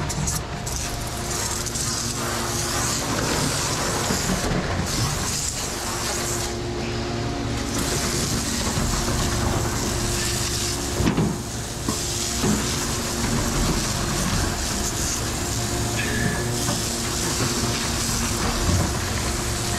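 A ready-mix concrete truck runs steadily with its drum turning, over the hiss of water spraying from a pistol-grip hose nozzle; the hiss breaks off briefly a few times.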